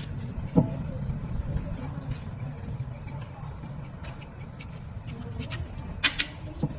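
Hand tools clicking and knocking on an electronic parking brake caliper as its motor is taken off: a few sharp clicks near the start and a cluster near the end, over a low steady hum and a faint high steady tone.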